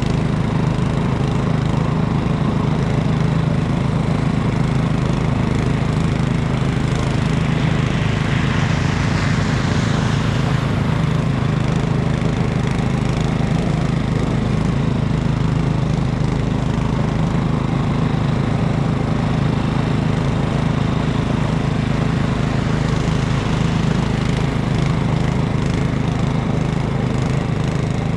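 A snowblower's small gasoline engine running steadily, with a swell of hiss about nine seconds in.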